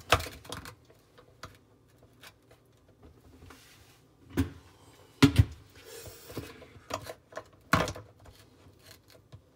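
Hard plastic dishwasher spray-arm parts knocking and clicking as they are handled and fitted onto the tub base. There are a handful of sharp knocks, the loudest about five seconds in, with lighter clicks and a brief rustle between them.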